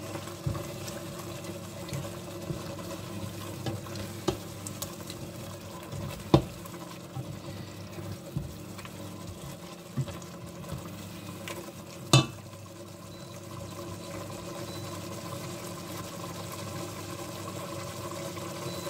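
A silicone spoon stirring a thick simmering stew in a stainless steel pot, with a few knocks of the spoon against the pot, the loudest about six and twelve seconds in. A steady low hum runs underneath, and the knocks stop for the last few seconds once the spoon is left resting in the pot.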